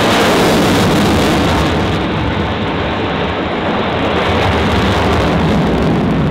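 Jet noise from an F/A-18F Super Hornet's twin General Electric F414 turbofans as the fighter climbs away overhead: a loud, steady roar that eases slightly after about two seconds.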